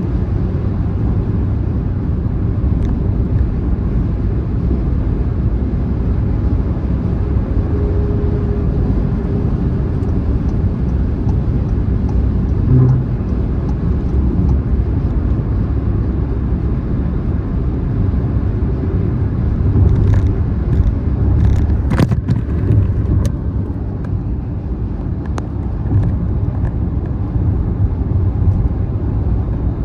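Car driving on a motorway: a steady low rumble of road and tyre noise. A few brief sharp ticks come about two-thirds of the way through.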